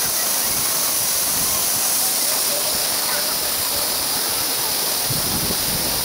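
Waterfall pouring into a pool, a steady, even rush of falling water.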